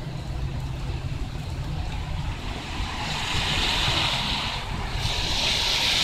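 Steady rain with a low rumble of wind on the microphone. The tyre hiss of cars driving through water on the wet street swells about three seconds in and again near the end.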